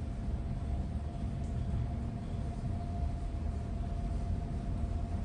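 Elevator car in motion between floors: a steady low rumble with a thin, constant hum running over it.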